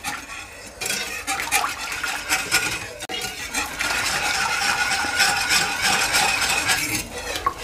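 A utensil stirring a white sauce as it comes up to the boil in a pan on the hob, with repeated scraping and clinking against the pan.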